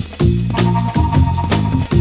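Instrumental background music with a steady drum beat, about four hits a second, over a bass line.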